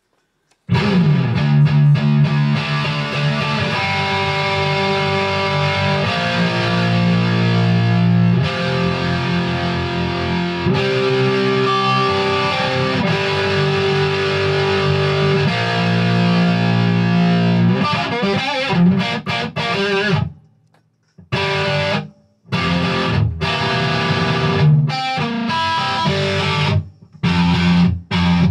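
Ibanez JEM 70V electric guitar played with distortion: lead lines with long held notes. It starts about a second in and breaks off briefly a few times in the last third.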